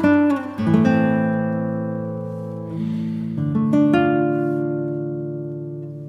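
Background music: acoustic guitar chords struck and left ringing, fading slowly, with a new chord about half a second in and another a little past the middle.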